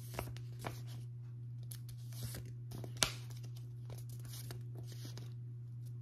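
Stiff paper flashcards being handled and flipped one after another: faint rustles and light snaps, the sharpest about three seconds in, over a steady low hum.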